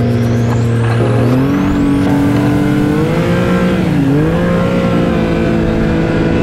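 Snowmobile engine running on the trail, its pitch stepping up about a second and a half in, dipping briefly near the middle as the throttle eases, then climbing again.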